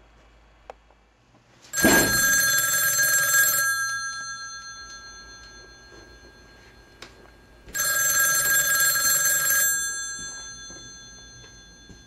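Telephone bell ringing twice. Each ring lasts about two seconds and fades away, and the rings come about six seconds apart.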